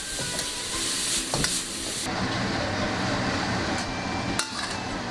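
Diced chicken and button mushrooms sizzling in a hot wok as they are stir-fried, with a few spatula strokes against the pan. The sizzle cuts off abruptly about two seconds in, leaving a lower steady hum with a few light clicks.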